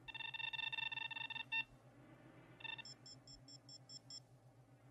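Esper photo-analysis machine's electronic beeping as it carries out an enhance command. A rapidly pulsing beep runs for about a second and a half, two short beeps follow, then a run of about seven quick high blips.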